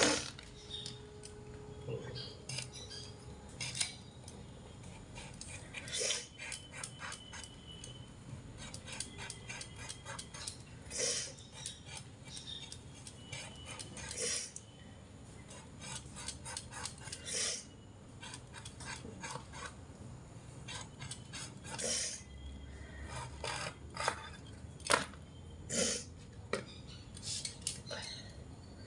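Pointed gourds (potol) being scraped and sliced on a boti, an upright floor-mounted kitchen blade: runs of quick scraping clicks, with a sharper knock every few seconds.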